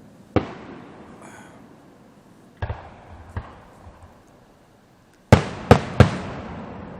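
Aerial fireworks shells bursting: one sharp bang, two softer ones a few seconds later, then a quick run of three loud bangs near the end, each followed by a rolling echo that dies away.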